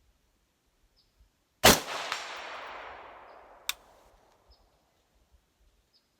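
A single shot from a Mk12 Mod1-style 5.56 mm rifle, loud and sharp, with its echo rolling off over about two seconds. A second sharp crack follows about two seconds after the shot.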